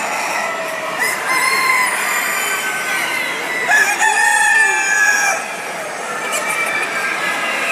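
Roosters crowing among clucking chickens, with several calls overlapping. The loudest is one long crow that starts about four seconds in and drops in pitch at its end.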